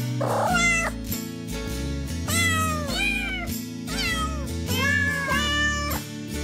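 Domestic cats meowing again and again, about five drawn-out meows with a rising-then-falling pitch, over steady background music.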